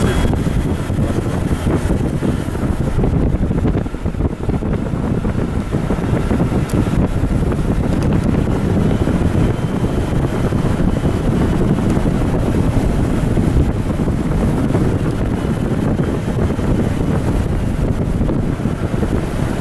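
Wind rushing and buffeting on the microphone through an open window of a moving car, with the car's road and engine noise underneath, loud and steady.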